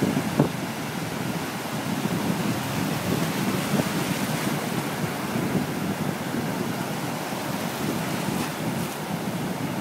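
Shallow surf washing in over sand at the water's edge: a steady rush and hiss of foaming seawater that swells slightly as a wave's white water churns through. A brief thump about half a second in.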